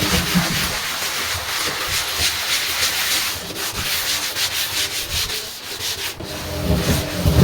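Hand scrubbing of a washing machine's surface: a steady rubbing, with a run of quick, rhythmic back-and-forth strokes in the middle.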